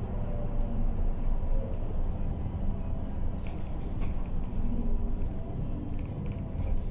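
Cabin sound of a MAN Lion's City Ü A20 bus on the move: a steady low rumble of engine and road, with scattered light rattling and jingling of the interior fittings.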